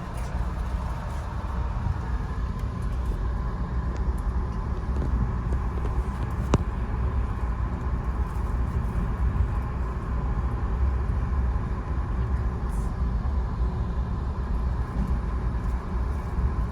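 Steady low rumble of a Via Rail passenger train running, with a single sharp click about six and a half seconds in.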